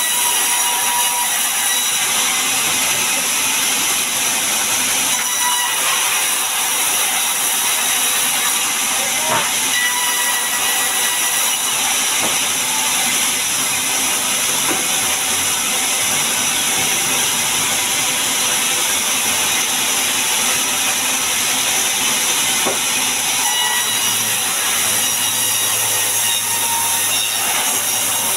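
Large sawmill band saw running with a steady, loud hissing whir while mahogany is sawn into planks. A lower hum joins near the end as the log is pushed up to the blade.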